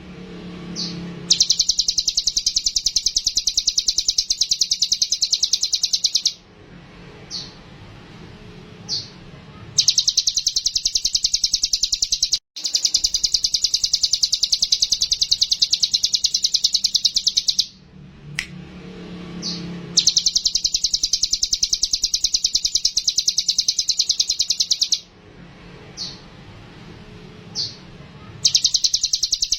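Ciblek gunung (mountain prinia) singing: long, very fast trills of sharp high notes lasting several seconds each, broken by short pauses with single brief rising whistles.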